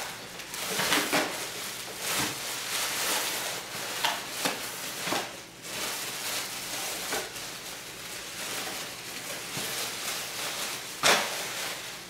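Clear plastic wrapping crinkling and rustling as it is pulled off a new hard floor cleaner, with a few sharp knocks from the packing being handled, the loudest about a second before the end.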